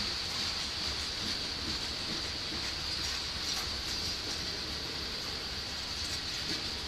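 Freight train of covered grain hopper cars rolling steadily past, a continuous rumble of wheels on rail, with a steady high-pitched tone running over it.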